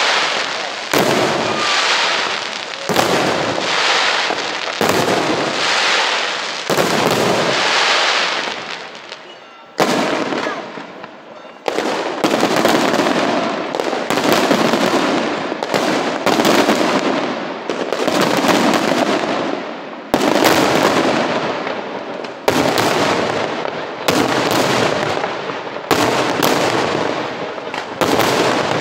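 Daytime aerial fireworks shells bursting in a steady run of loud bangs, each trailing off in a rolling echo. The bangs come about every two seconds at first, pause briefly about ten seconds in, then come faster, roughly one a second.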